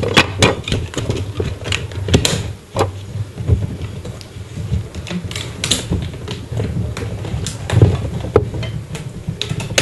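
Irregular clicks, knocks and clatters of dishes, jars and utensils being handled during food preparation, over a steady low hum.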